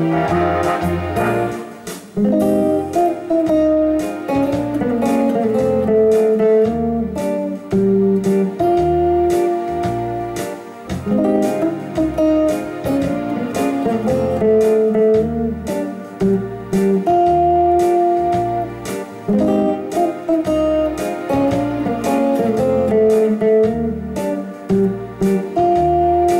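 Stratocaster-style electric guitar playing a jazz ii-V-I lick in single-note lines, the phrase coming round several times, over a backing bass line.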